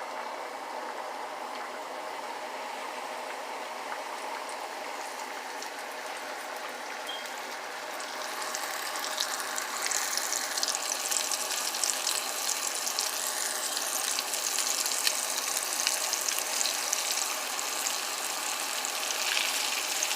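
Flour-coated ribs frying in hot oil in a pot: a steady sizzle that turns louder and more crackly about eight seconds in, as more ribs go into the oil.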